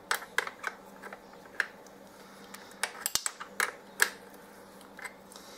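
Irregular sharp metal clicks and taps of a 10 mm wrench being worked on the rear brake pedal's height-adjuster bolt of a 2006 Kawasaki KX250F dirt bike, as the adjuster is turned to lower the pedal.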